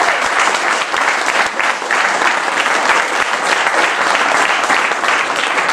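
A hall audience applauding steadily after a sung aria, with dense clapping sustained throughout.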